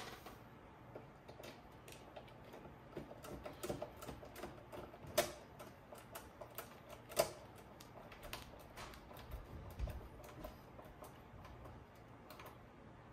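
Irregular light clicks and taps of a screwdriver and screws working on a cassette deck's bottom panel, with a quick run of ticks around three to four seconds in and two sharper clicks about five and seven seconds in.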